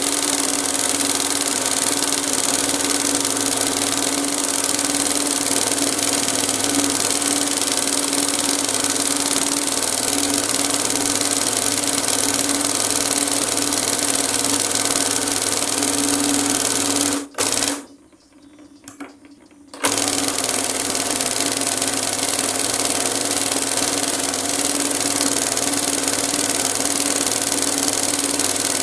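Embroidery sewing machine running steadily as it stitches, a constant hum under a fast even rattle. Past the middle the sound cuts out suddenly for about two seconds, then resumes.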